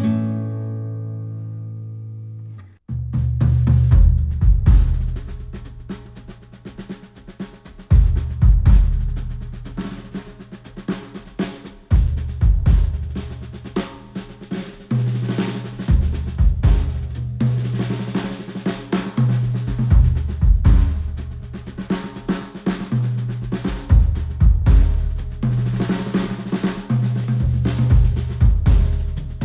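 Recorded music played back through Audio-Technica open-back studio headphones and picked up by microphones. A chord rings out and fades, then about three seconds in a drum-kit groove with a heavy bass line starts and keeps a steady beat.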